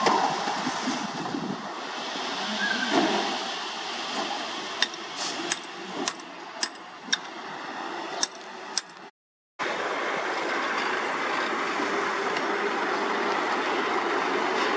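Heavy dump truck engines running as a raised tipper body unloads dirt. A string of sharp knocks comes through the middle. The sound drops out briefly about nine seconds in, then steady engine noise carries on.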